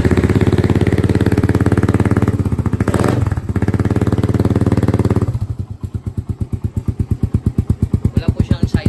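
Suzuki Raider 150 carb's single-cylinder four-stroke engine running through an Apido aftermarket power pipe exhaust: held at raised revs for about five seconds with a brief dip about three seconds in, then dropping back to an evenly pulsing idle.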